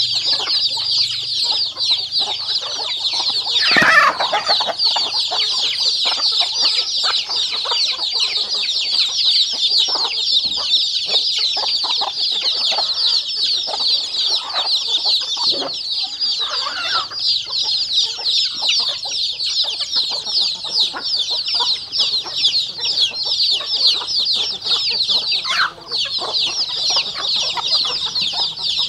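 A flock of chickens with many chicks and ducklings: a dense chorus of high, rapid peeping, with hens clucking underneath. One sudden louder sound about four seconds in.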